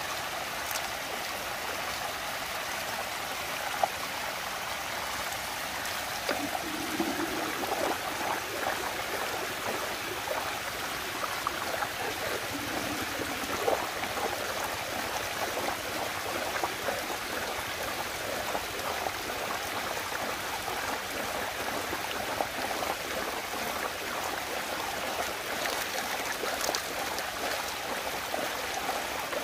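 Water swirling and rushing down a whirlpool vortex, a steady flowing-water noise, with a few short clicks now and then.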